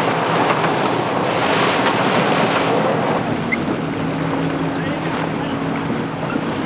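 Wind buffeting the microphone over choppy water splashing around small racing sailboats. About halfway through, a motorboat engine comes in with a steady low drone.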